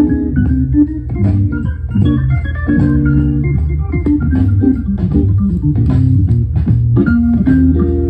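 Soul-jazz Hammond B-3 organ recording playing from a vinyl LP through a turntable speaker base: sustained organ chords and melodic lines.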